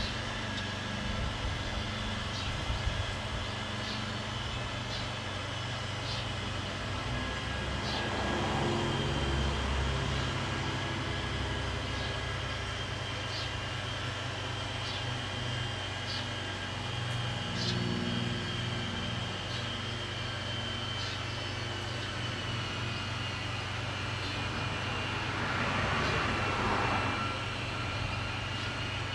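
Outdoor residential ambience: a steady low engine-like hum, swelling twice as vehicles pass, with short high bird chirps about once a second through the first half.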